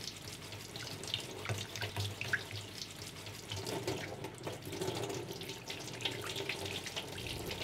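A tap running, a thin stream of water splashing into a stainless steel sink.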